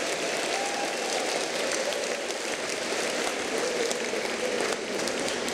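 Steady applause from a crowd, an even clatter of clapping with a few faint voices calling out.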